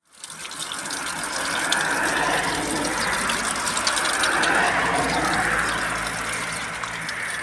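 Water running from a stone fountain's brass tap and splashing steadily onto the stone below.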